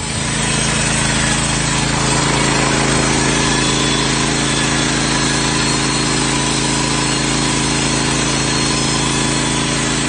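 Rima RS31G Timber Thunder portable band sawmill running steadily as it cuts through a timber: a steady machine drone under the hiss of the blade in the wood.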